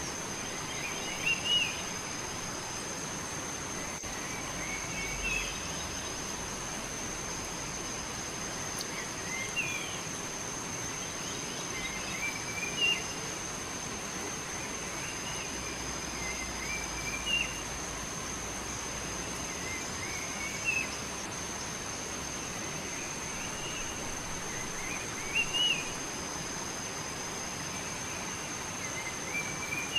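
A bird repeating a short chirping phrase about every three to four seconds, over a steady high-pitched insect drone and a constant background hiss.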